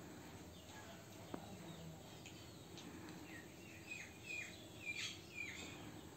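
Faint background ambience with a quick run of six or seven short, falling bird chirps in the second half, and a single light click a little after a second in.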